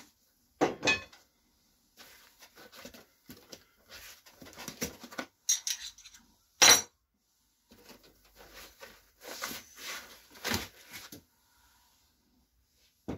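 Cardboard box and foam packing being handled as a laser engraver is unpacked: irregular rustling, rubbing and knocks, with a sharp clack about six and a half seconds in, the loudest sound.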